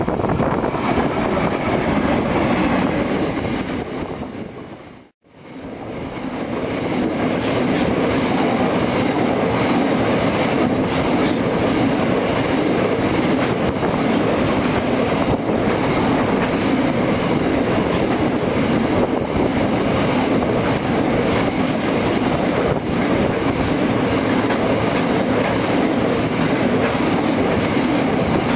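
Long freight train of loaded covered hopper wagons rolling steadily past, their wheels running over the rails. The sound fades out and back in briefly about five seconds in.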